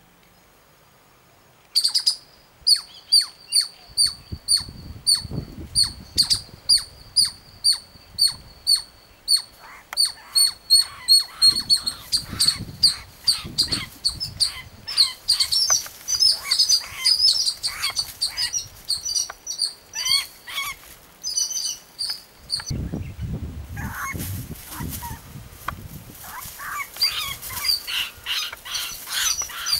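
Loud, shrill bird distress calls start suddenly about two seconds in and repeat evenly, two to three a second. From about twelve seconds in, more varied, overlapping calls join them. A rustling of dry leaves comes and goes underneath.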